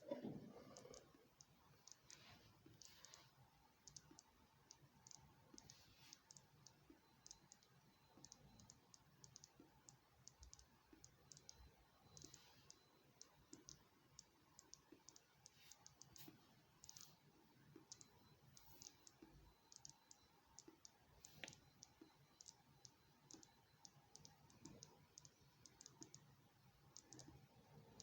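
Faint, irregular crackle of tiny clicks, several a second, typical of a lead-acid battery gassing on charge, with bubbles popping at its vent hole.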